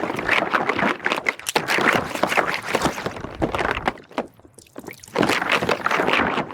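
Wet, bubbly liquid noise in irregular bursts, with a quieter gap a little past the middle.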